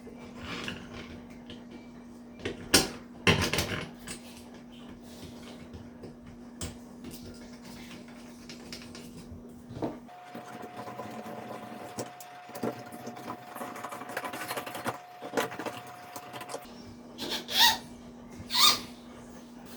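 A few sharp clicks and knocks of shower valve parts and trim being handled and fitted, two close together early and two more near the end, over a steady low hum.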